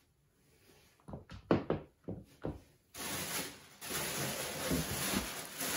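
A few knocks and thuds as a pair of heeled shoes is set down, then steady rustling of packaging as hands dig through a cardboard shipping box.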